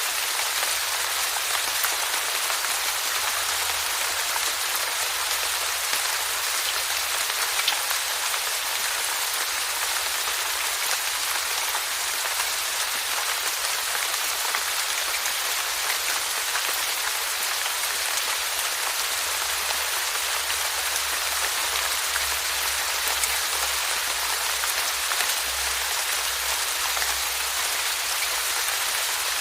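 Steady rainfall, a dense even patter of raindrops on a surface with scattered individual drop ticks.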